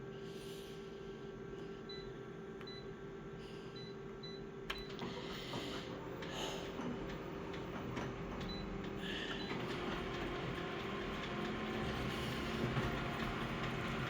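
An aging office photocopier running a copy. A steady hum and a few short, faint beeps are followed by a click about five seconds in, then the machine's mechanism runs and grows louder. The run carries a rattling, vibrating noise that the owner takes as a sign the machine, over six years old, is near the end of its life.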